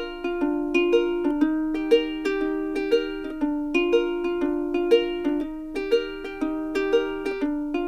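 Background music: a bright plucked-string tune, ukulele-like, with notes picked about twice a second in a steady rhythm.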